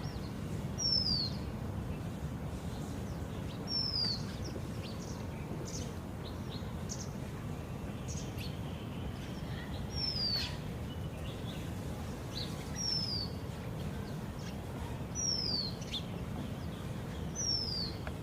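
A small songbird repeating a short, high whistled note that slides downward, about every two to three seconds, with a few fainter chirps between, over a steady low background rumble.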